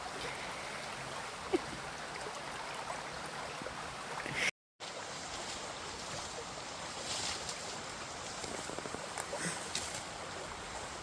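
Steady rush of flowing water from a woodland stream or waterfall. The sound drops out completely for a moment about four and a half seconds in.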